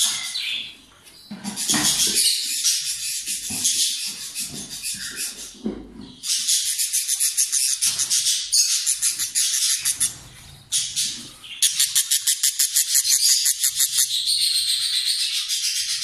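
Cockatiel chicks in a nest box giving fast, raspy, pulsing calls in long runs, broken by short pauses about a second in, at about six seconds and at about ten seconds.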